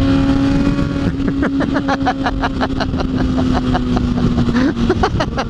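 Kawasaki Ninja ZX-6R inline-four sport bike engine running at a steady speed while riding, with wind noise on the helmet microphone. A rapid, even pulsing runs through the middle, and the engine note climbs briefly near the end.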